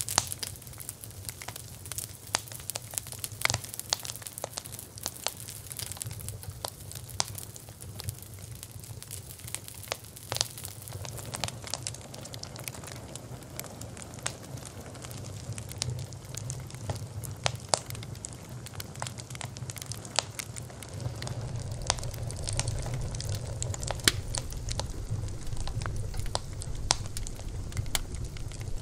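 Wood fire burning: irregular sharp crackles and pops over a low steady rumble of the flames, which grows a little fuller in the second half.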